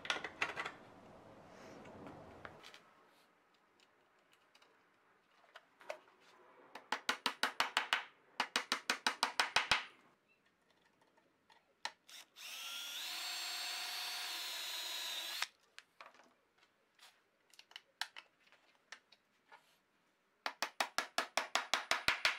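A drill runs steadily for about three seconds, boring a pilot hole through a sheet-metal roof into the wood beneath so the nail will not split it. Before and after it come runs of rapid, evenly spaced sharp taps.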